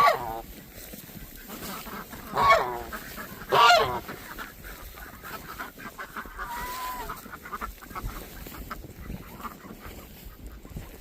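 Domestic goose honking: three loud honks in the first four seconds, each falling in pitch, then a softer call a few seconds later.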